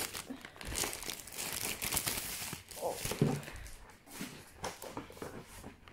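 Plastic wrapping crinkling and tearing as a hardback book is pulled out of it, with rustles and light handling knocks.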